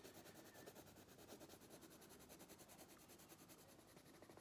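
Near silence, with the faint scratch of a coloured pencil shading back and forth on paper.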